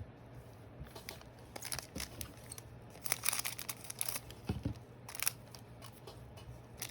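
Trading cards being handled and shuffled by hand, with crisp crinkling and rustling in short irregular bursts.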